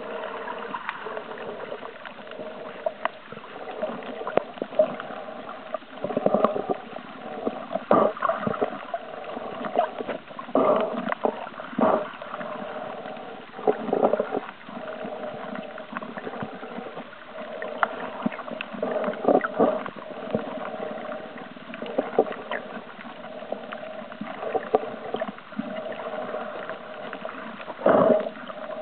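Muffled water noise picked up by a camera held under water: a steady murmur with water swirling and gurgling around it, broken by irregular louder swishes.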